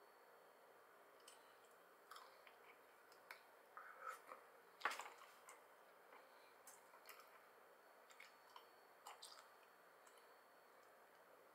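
Edamame being eaten: pods squeezed between the teeth and the beans chewed, giving faint, irregular clicks and squishy smacks, the loudest a sharp click just before halfway.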